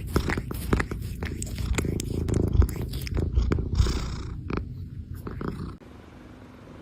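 A cat purring: a steady low rumble with scattered clicks and taps over it. It stops about six seconds in.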